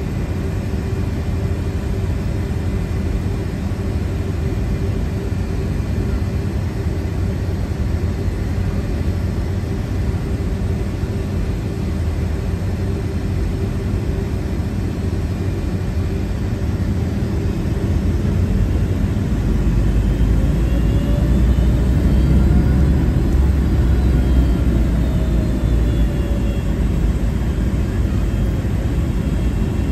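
Boeing 757-300 jet engine starting, heard in the cabin from a window seat over the wing: a steady low rumble that grows louder about two-thirds of the way in, with a faint whine that rises and then falls away as the engine spools up.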